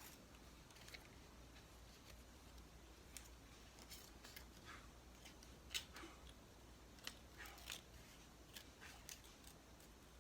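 Scissors cutting sticky paper: faint, irregular snips while a small carrot-nose shape is cut out.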